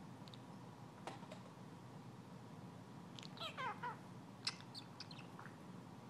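Budgie giving a short warbling chirp about three seconds in, with a couple of short chirps after it. A few faint sharp clicks are heard around it.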